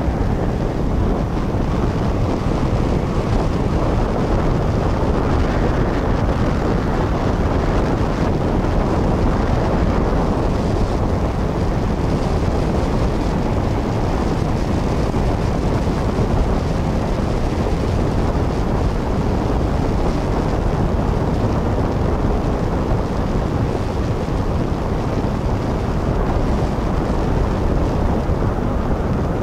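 Steady rumble of a speedboat underway, its engine and hull noise mixed with wind buffeting the microphone.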